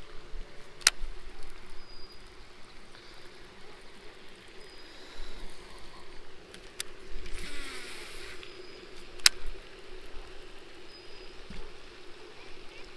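Baitcasting reel being cast and reeled in: a few sharp clicks of the reel and a brief whir of line spooling off during a cast about seven seconds in, over a steady low hum.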